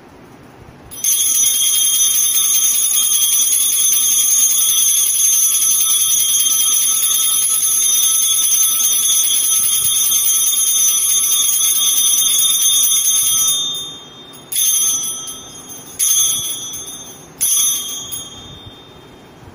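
Altar bell ringing at the consecration: one long continuous high-pitched ring of about twelve seconds as the host is elevated, then three short separate rings about a second and a half apart.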